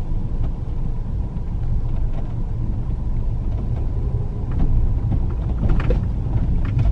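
Road noise inside a Kia Ray's cabin while it drives along a dirt track: a steady low rumble of engine and tyres, with small ticks and knocks over the last couple of seconds.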